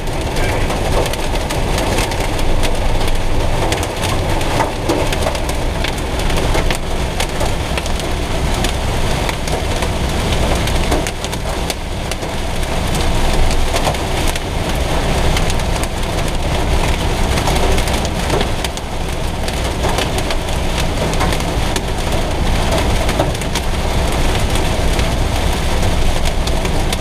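Heavy rain drumming on the windshield and body of a Citroën Jumper van, heard from inside the cabin as a dense patter of small ticks, over the steady low rumble of tyres on a wet motorway.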